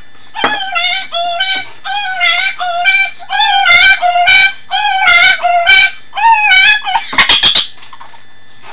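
High-pitched, sped-up chipmunk-style voice singing in short phrases. Near the end comes a quick run of about four sharp clicks.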